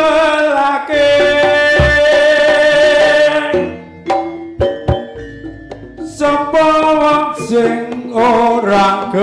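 Live jaranan music: a loud, held, slightly wavering melody line over drum strokes. It drops away about three and a half seconds in, leaving a few single drum strikes, and the melody comes back in about six seconds in.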